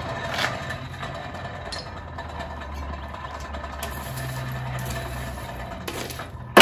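Hand-cranked forge blower whirring as it feeds air up through the tuyere into a freshly lit coal fire, a steady low hum that steps up in pitch about four seconds in. A sharp clank comes at the very end.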